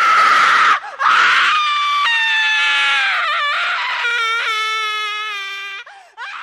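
A person screaming: a long, loud scream that starts raspy, breaks off briefly about a second in, then goes on as a clearer, slowly falling wail. A short second cry follows near the end.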